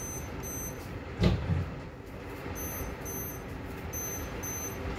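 Lightning detector beeping in high-pitched double beeps, three pairs, each pair signalling a lightning strike within 15 miles, over the steady hiss of heavy rain. A short, loud thump comes a little over a second in.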